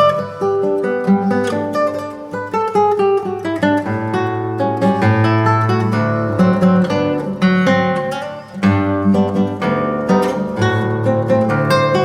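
Solo classical guitar, a 1965 José Ramírez concert guitar, playing a fingerpicked piece: quick runs of plucked notes over held bass notes. The playing thins briefly about eight seconds in, then picks up again.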